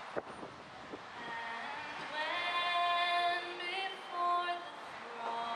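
A singing voice with music comes in about a second and a half in, holding long notes that slide up between them, after a single click near the start.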